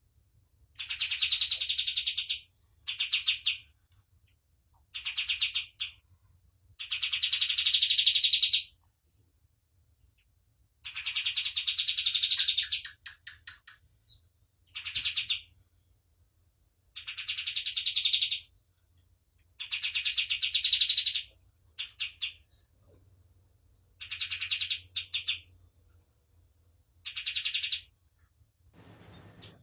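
Kapas tembak singing: a series of short bursts of fast trilled chatter, each lasting about one to two seconds, separated by brief pauses.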